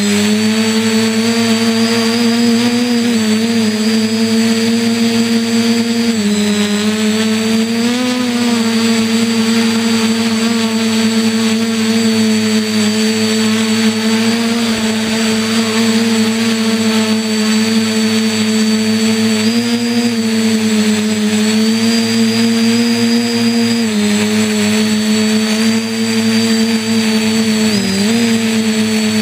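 A multirotor quadcopter's electric motors and propellers hum steadily, heard from the camera mounted on the craft, with a hiss above the hum. The pitch dips and recovers briefly every few seconds as the motor speed changes.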